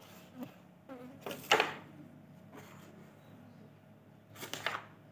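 Carrom striker shots on a wooden carrom board: a sharp click about a second and a half in and another near the end, over a faint steady buzz.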